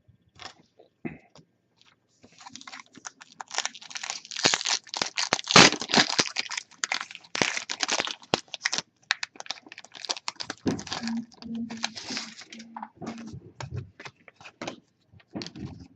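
Trading card pack wrapper being torn open and crinkled, a dense crackling that starts a couple of seconds in and thins out near the end, with scattered clicks before it.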